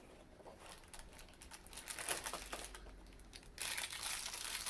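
Cardboard and plastic packaging handled with light clicks and rustling, then from about three and a half seconds in a louder, steady crinkling of the small plastic bag of LEGO pieces from behind the advent calendar door.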